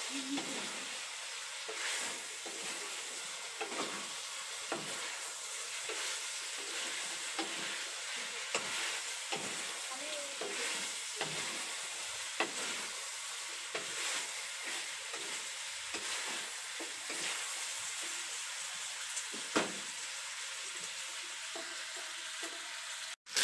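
Pork cubes sizzling in a wok as their fat renders out, with a spatula stirring and scraping them. A steady sizzle with frequent short clicks and scrapes.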